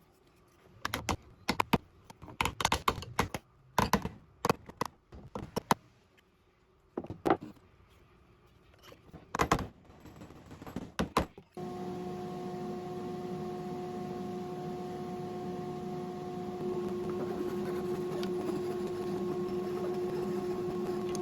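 Scattered sharp clicks and knocks as skateboard wheel bearings are press fit onto wooden dowels and the parts are handled. After about eleven seconds a steady hum with a held tone starts and carries on.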